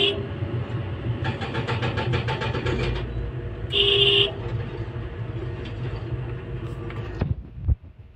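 Excavator engine running heard from inside the cab, with a rapid rattle for a couple of seconds about a second in. A short horn toot comes about 4 s in. The sound drops away abruptly near the end.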